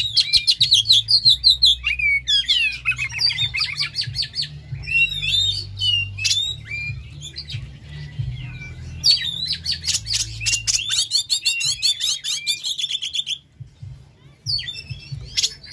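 Oriental magpie-robin singing loud, rapid phrases of chirps, whistles and trills, with short pauses between phrases and a longer break shortly before the end.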